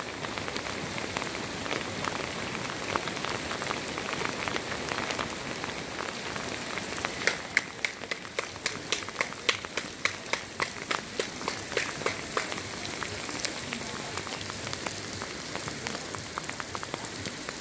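Heavy rain falling steadily on a wet sand arena. About halfway through, a run of sharp, evenly spaced taps, two or three a second, sounds for about five seconds.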